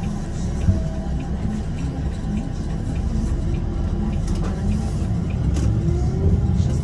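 Bus engine and road noise heard inside the cab while driving, a steady low rumble. A whine rises and then falls from about five seconds in.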